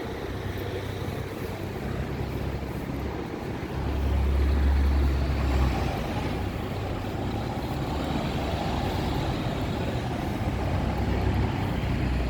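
Road traffic noise with vehicles running past, a low rumble that swells for a couple of seconds about four seconds in.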